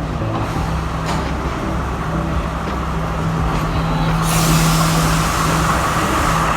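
Bus engine running with a steady drone, heard from on board. About four seconds in, a loud hiss joins it.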